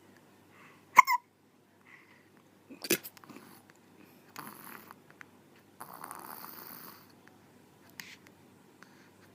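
Hiccups: a sharp, sudden hic with a short voiced squeak about a second in, another about two seconds later and a fainter one near the end, with softer noises in between.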